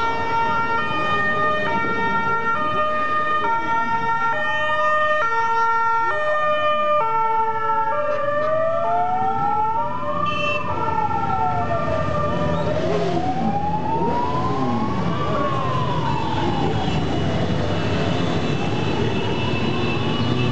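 Sirens sounding over each other: a stepped, alternating hi-lo tone for the first half and slow rising-and-falling wails throughout. Under them, the engines of a stream of motorcycles and scooters riding past.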